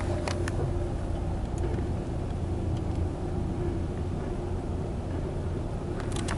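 A car's engine running, heard from inside the cabin as a steady low hum, with a few light clicks just after the start and again near the end.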